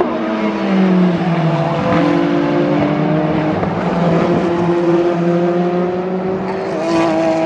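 Peugeot 9X8 Le Mans Hypercar's 2.6-litre twin-turbo V6 running at speed on track. Its pitch falls over the first second or so, then holds and climbs slowly in small steps.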